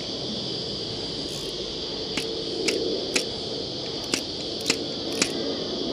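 Steady high buzz of insects, with six sharp clicks from about two seconds in, roughly half a second apart.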